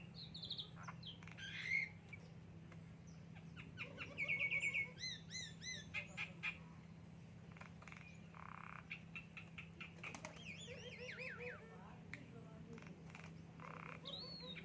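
Javan myna calling: a varied run of whistles, rising and falling chirps and chattering notes, with a loud rapid trill about four seconds in.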